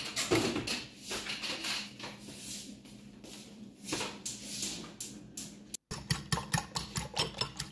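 A fork beating raw eggs in a ceramic bowl: rapid, even clinks of the fork against the bowl start about six seconds in, after a few scattered light taps. A low steady hum runs underneath.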